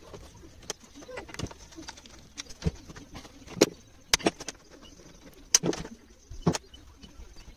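Irregular clicks and knocks from hands and a screwdriver working the plastic engine shroud of a Stihl FS 260 brushcutter loose and lifting it off.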